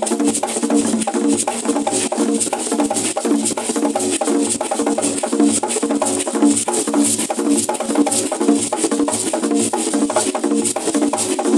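Traditional Kiganda drumming on embuutu and engalabi drums: many strokes a second in a fast, steady, repeating rhythm.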